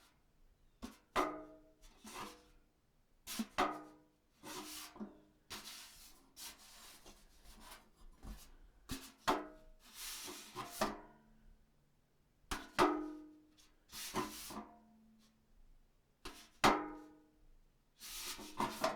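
Metal trash can being filled: things dropped in clang against its sides, each knock ringing briefly, with rattling and rustling of rubbish tumbling in. The clanks come irregularly, every second or two.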